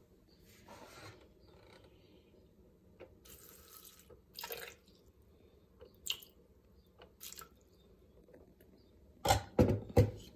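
Water poured in short splashes into the steel mixing bowl of a Thermomix, followed about nine seconds in by a few loud knocks, the loudest sounds here.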